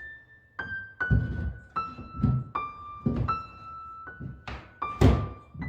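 Soft background piano music playing a slow melody that steps downward note by note, with several dull thunks of things being handled or set down, the loudest near the end.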